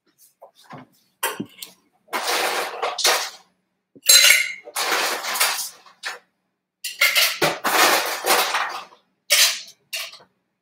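Ice cubes clattering into a metal cocktail shaker tin in about five bursts, as the shaker is filled about half full of ice.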